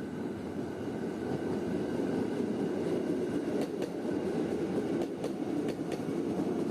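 Electric commuter train running on the track, with a steady noise and a few sharp clicks from the wheels and rails over the second half.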